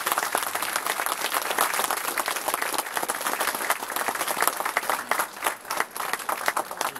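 Audience applauding: many hands clapping steadily in a hall.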